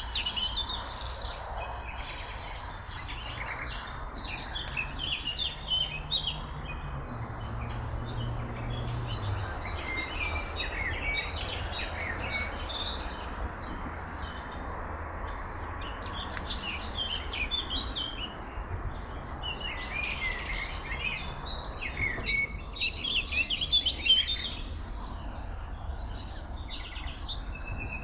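Several songbirds singing and chirping in quick, overlapping phrases, over the steady rush of a river.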